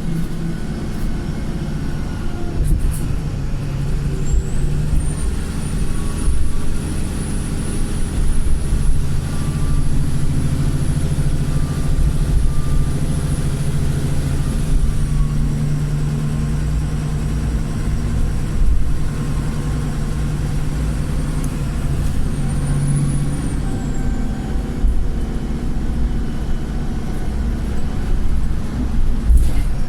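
Bus diesel engine running under load, heard from inside the Wright Pulsar, with a high-pitched turbo whistle. The whistle rises about four seconds in, holds for some ten seconds and falls away, then swells and dies again briefly later. This squealing turbo is a sign of a turbocharger the uploader describes as cracked.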